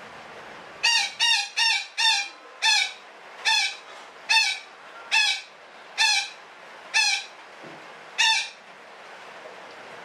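Betet parakeet calling in a run of about eleven short, harsh squawks, each sliding slightly down in pitch. The first four come quickly, about three a second, and the rest about one a second, stopping near the end.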